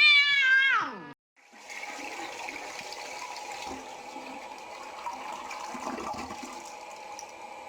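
A cat's loud, drawn-out meow ending about a second in. After a short break it is followed by a steady rushing, water-like noise.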